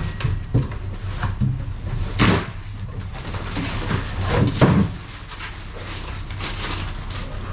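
Cardboard boxes and plastic packaging being handled and opened: rustling and scraping, with two heavier thuds about two seconds in and again about four and a half seconds in, over a steady low hum.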